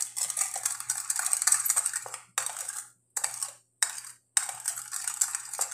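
Metal spoon scraping and clinking against a small ceramic bowl while stirring a soy and oyster sauce mix. A run of about two seconds, then several short bursts with brief pauses between.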